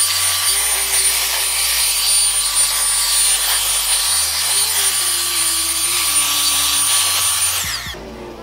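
Leaf blower running steadily, a loud rushing blast of air with a thin high whine, blowing water out of a car's honeycomb front grille. Near the end it is switched off and the whine winds down.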